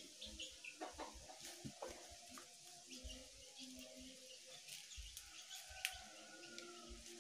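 Soft clicks and rustles of raw papaya leaves being handled and chewed, with faint bird chirps in the background. One sharper click near the end is the loudest sound.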